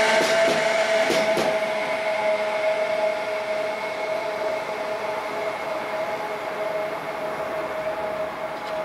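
DB Class 152 electric locomotive running light past, a steady whine fading as it moves away, with a few clicks of the wheels over rail joints in the first second and a half.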